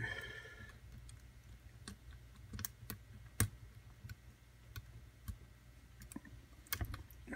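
Faint, irregular small clicks of a lock pick and tension wrench working the pins of a pin-tumbler lock, about a dozen spread unevenly.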